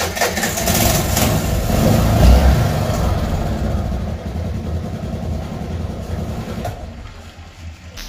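Vehicle engine running loudly, swelling to its loudest about two seconds in and then slowly settling down.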